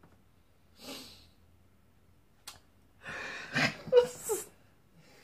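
A person laughing in wheezy, breathy gasps: a short breath about a second in, a click, then a louder burst of wheezing laughter with a few squeaky voiced notes.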